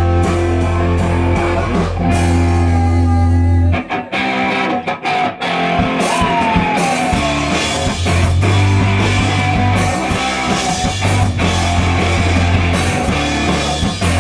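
Live rock band playing without vocals: electric guitar, bass and drums with long held chords. The music breaks off briefly about four seconds in, with a few short stops, then carries on.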